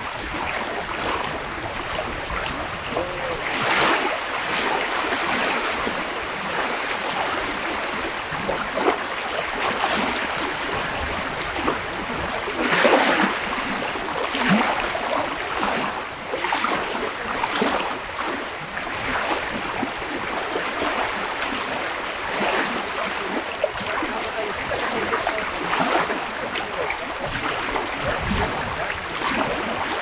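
Sea waves breaking and washing onto the shore: a steady rush of surf that swells louder every few seconds as each wave comes in.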